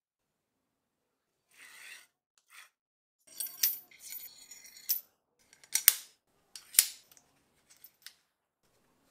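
Steel rod, aluminium shaft supports and ball bearings in a plywood arm being handled and fitted together: soft scrapes, then a run of light metallic clinks and scraping, two sharp metal clicks about a second apart, and a few faint ticks near the end.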